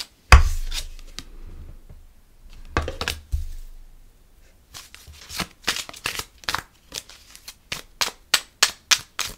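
Oracle cards being handled on a table: a couple of soft thumps, then a run of quick, sharp slaps and taps, two to three a second, over the second half.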